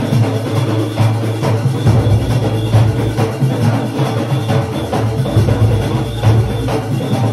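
Junkanoo band playing live: big hand-carried goatskin drums and barrel drums beating a fast, driving rhythm, with a heavy, steady low boom under dense percussion.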